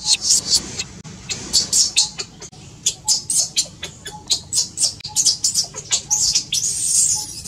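Infant macaque screaming in rapid, high-pitched shrieks, several a second, with a longer drawn-out scream near the end: distress cries of a baby being pushed off and left by its mother.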